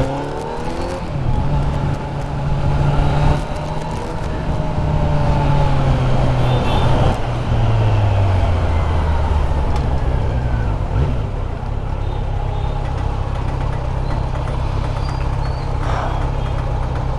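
Kawasaki Z900's inline-four engine under way, its pitch rising and dropping with gear changes in the first half, then holding steady while cruising.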